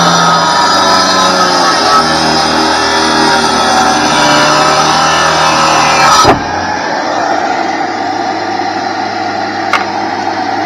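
Electric wet tile saw cutting through a fired clay paver brick: a steady motor whine with grinding under it. About six seconds in the cut ends suddenly and the saw runs on more quietly, with one short click near the end.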